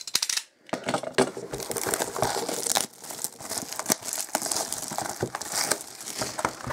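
Plastic shrink wrap being torn and stripped off a cardboard trading-card box, crinkling and crackling, loudest in the first three seconds and then softer.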